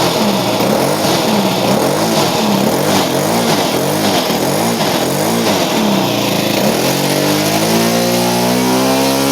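OS FS-91 Surpass II four-stroke glow model-airplane engine running with its propeller, its speed surging up and down over and over about once every three-quarters of a second, then holding a steadier, higher speed from about seven seconds in. The engine is hunting at part throttle and seems to want to die, a sign of a high-speed needle valve turning on its own during the run.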